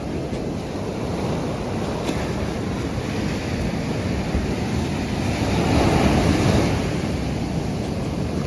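Surf washing on a beach, a steady rush of breaking waves that swells louder about six seconds in as a bigger wave comes in.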